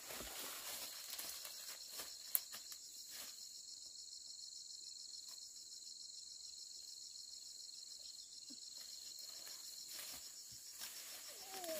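Insects chirping outdoors: a steady, high-pitched trill with a fast pulsing texture, with a few sharp clicks, one loud one about two seconds in, and a short wavering call near the end.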